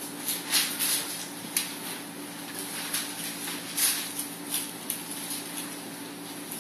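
Thin Bible pages being leafed and turned by hand: a string of short, irregular papery rustles over a steady low hum.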